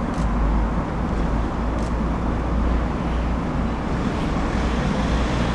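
A car's engine running close by, a steady low rumble over a wash of road traffic noise.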